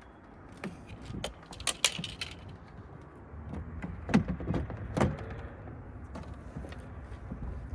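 Scattered clicks, taps and light metallic clinks of hand work on a truck door, as the mirror's mounting hardware is handled. The two loudest knocks come about four and five seconds in.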